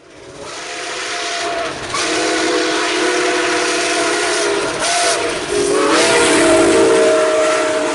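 Nickel Plate Road 765, a 2-8-4 Berkshire steam locomotive, sounds a long whistle blast of several notes at once as it approaches and passes, over the steady hiss of steam and running gear. The whistle steps up slightly in pitch about two-thirds of the way through and is loudest near the end.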